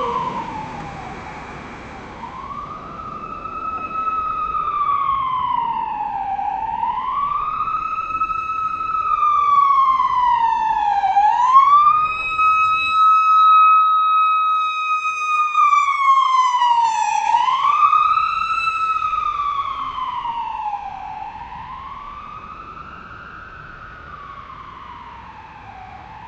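Ambulance siren wailing, its pitch rising and falling in slow cycles of about four seconds, and held steady at the top for a few seconds midway. It grows louder toward the middle and fades near the end.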